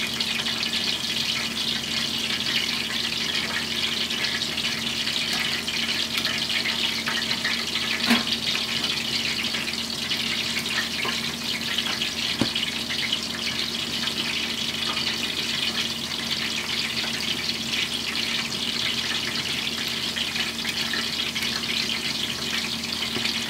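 Okonomiyaki-style batter fritters deep-frying in hot oil: a steady, dense crackling sizzle, over a steady low hum, with one sharp knock about a third of the way in.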